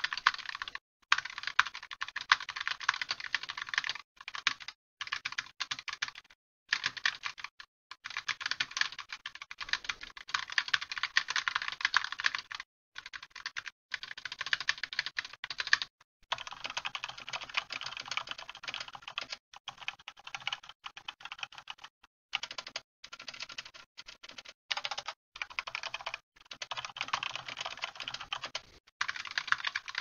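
Fast typing on mechanical keyboards heard through a headset microphone: a Razer Huntsman Tournament Edition with red optical linear switches first, then from about halfway a Razer BlackWidow V3 with yellow silent switches. The key clatter sounds thin and drops out to silence between runs of typing.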